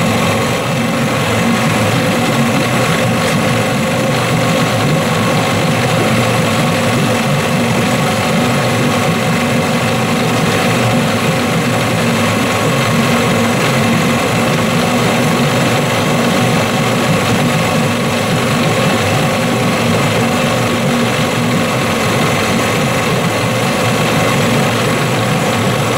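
Johnson 15 hp two-stroke twin outboard engine running steadily on the stand as it warms up, with no change in speed.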